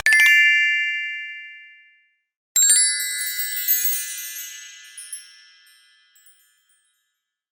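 Synthetic 'success' sound effects: a bright ding that rings out and fades over about two seconds. About half a second after it dies away, a sparkling cluster of high chime tones rings and fades over some four seconds.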